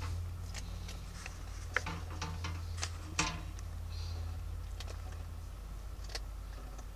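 Kittens' claws clicking and scratching on a ribbed plastic enclosure wall, with blanket rustling: light, irregular ticks over a steady low hum.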